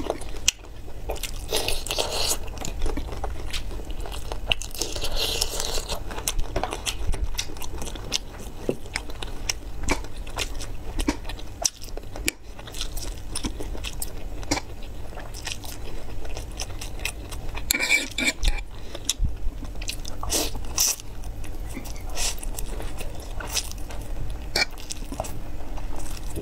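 Close-miked eating sounds: crunching and chewing of whole shell-on shrimp, broccoli and black noodles, made up of many short sharp crunches and clicks, with a fork scraping the metal tray now and then. A steady low hum runs underneath.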